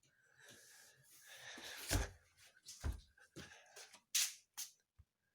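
Rustling and handling noise during play with a cat, with two dull thumps about two and three seconds in and two short hissing bursts near the end.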